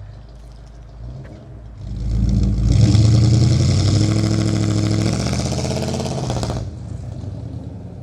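Pontiac 350 V8 in a 1971 Le Mans revving hard as the car launches from a standstill. It rises about two seconds in, holds at high revs with loud exhaust, then cuts off sharply near the end as the throttle is let off. The locker-equipped rear hooks up instead of spinning the tyres into a burnout.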